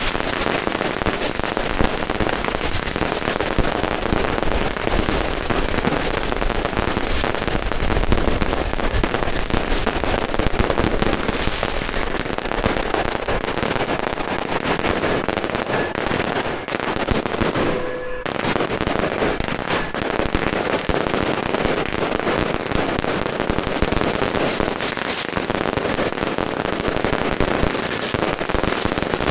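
Firecrackers going off in a dense, continuous crackling barrage, easing briefly about eighteen seconds in.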